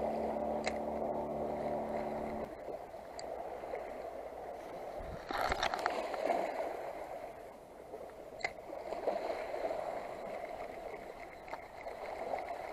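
Small waves lapping and sloshing over the rocks at the water's edge, with a louder rush about five seconds in. A steady hum stops abruptly a couple of seconds in.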